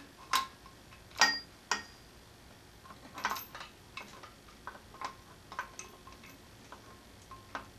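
Scattered light metal clicks and clinks as a timing-belt idler pulley and its bolt are fitted by hand to the front of a Subaru engine. The two loudest clinks come about a second in, and some ring briefly.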